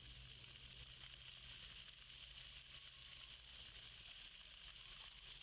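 Faint, steady hiss of dry-deck fountain jets spraying up from the paving and splashing back onto the wet stone.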